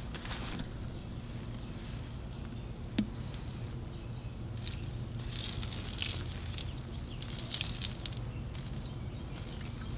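Liquid poured from a bottle onto grass and soil, splashing in a few hissing spurts from about halfway through until near the end, over a steady low background hum.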